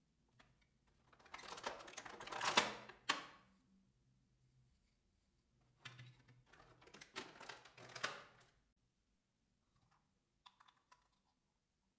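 Thin clear plastic packaging tray being handled and flexed, crackling and rustling in two stretches of a few seconds each. A few light clicks of plastic pieces follow near the end.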